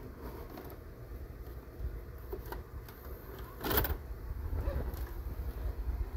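VHS cassette pushed into a front-loading VCR: small plastic clicks as it slides into the slot, then one loud clunk about four seconds in as the loading mechanism takes the tape in and seats it, over a low handling rumble.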